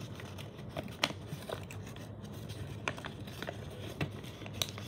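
Folded origami paper crackling and crinkling in scattered sharp snaps as its creased flaps are pulled open by hand, over a faint steady low hum.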